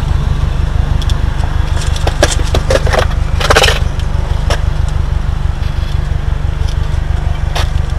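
Subaru WRX STI's turbocharged flat-four idling with a steady low rumble. A cluster of clicks and rattles comes about two seconds in, then a brief, loud rustling noise about three and a half seconds in, the loudest sound here.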